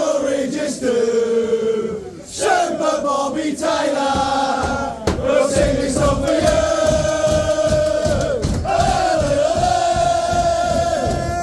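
A crowd of male football supporters singing a chant together in unison. From about five seconds in, a steady beat of low thumps, about three a second, runs under the singing.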